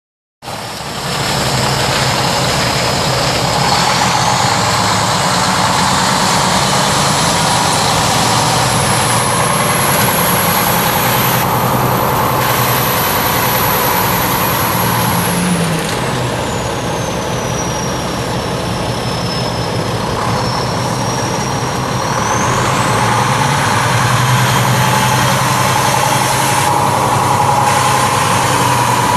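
Cummins ISM 10.8-litre inline-six turbo diesel of a 2005 Kenworth T800 semi tractor running as the truck drives slowly around. It starts about half a second in, with a thin high whistle that rises, falls in the middle, and rises again near the end.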